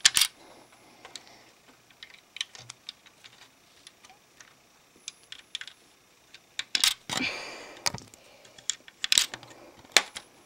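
Plastic Lego bricks of a built Pizza Planet truck clicking and clattering as it is handled, with scattered light clicks and a brief rubbing noise about seven seconds in.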